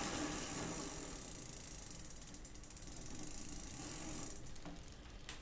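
Bicycle drivetrain turning on a repair stand: the chain runs over the absoluteBLACK 32T oval chainring while the rear hub's freewheel pawls click rapidly as the wheel spins. The sound eases off near the end.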